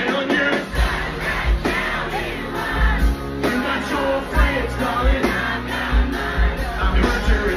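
Live rock band playing loud over a venue PA, heard from in the audience: electric guitars, drums with a pounding kick drum, and singing.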